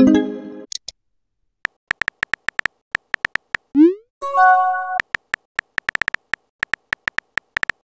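Texting-app sound effects: runs of quick keyboard-tap clicks, a short rising blip as a message is sent just before the middle, and a brief synthesized chime right after it. Another chime sounds at the very start.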